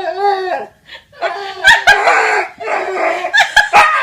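A dog vocalizing in several bending, pitched sounds, with people laughing.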